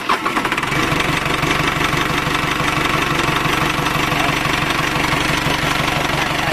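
Caterpillar 3054C (Perkins) four-cylinder diesel engine just caught after cranking, settling within the first second into a steady run. It starts and runs on its freshly refitted injection pump, a sign the pump timing is set right.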